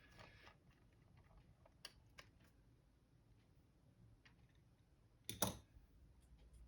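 Near silence with a low room hum, broken by a few faint clicks and one louder click about five seconds in.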